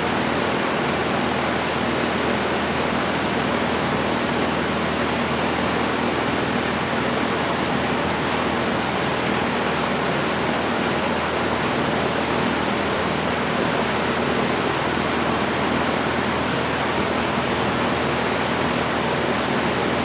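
Steady rushing noise with a faint low hum underneath, unchanging throughout, like a fan or blower running close by.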